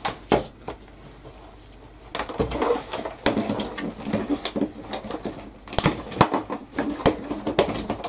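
Craft materials and tools being handled on a work table: a few sharp clicks, then irregular rustling, clattering and tapping from about two seconds in.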